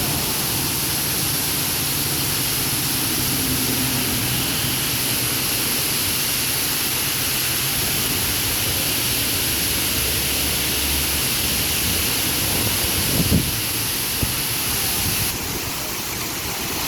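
Man-made waterfall: a steady, loud rush of falling water, a little softer near the end.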